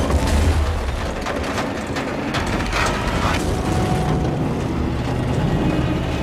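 Movie sound effects of a bus sliding off a rocky cliff edge: heavy metal grinding and scraping against rock over a deep rumble, with clattering most dense in the first three seconds or so.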